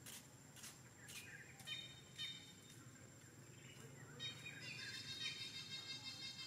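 Faint high-pitched animal calls in forest ambience: a few short calls in the first half, then one longer, wavering call near the end.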